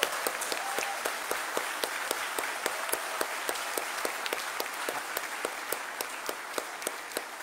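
Crowd applauding: many hands clapping in a dense, steady patter, with sharper individual claps standing out.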